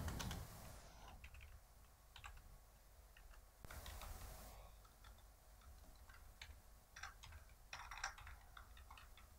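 Faint typing on a computer keyboard: scattered, irregular keystrokes with short clusters, and a brief soft hiss a little under four seconds in.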